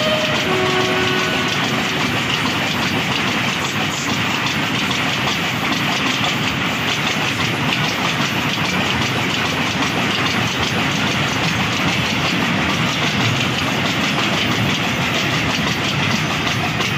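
Freight train wagons rolling past close by: a steady rolling rumble with a fast, even clickety-clack of wheels over the rail joints.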